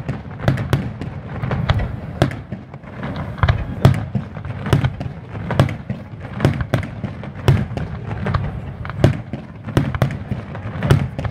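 Fireworks display: aerial shells bursting in a rapid, irregular string of bangs, about two or three a second.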